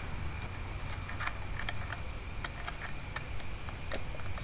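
Irregular light clicks and taps of small metal parts as a 1984 Honda Shadow VT500C carburetor is handled and fitted together by hand.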